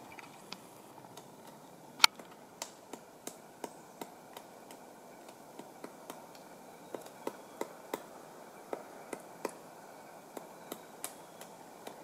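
Pileated woodpecker chipping into a decaying tree trunk with its bill while foraging: irregular single knocks, one loud strike about two seconds in and a quicker run of strikes in the second half.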